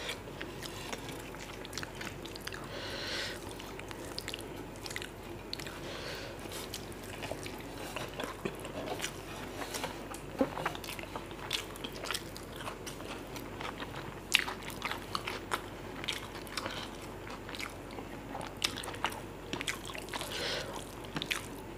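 Close-up eating sounds of mutton biryani eaten by hand: chewing with moist mouth noises and irregular sharp clicks and small crunches.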